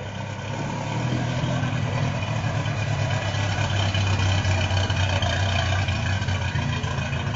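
Off-road race truck engine running with a steady low note, getting louder about a second in and staying loud, then easing slightly near the end.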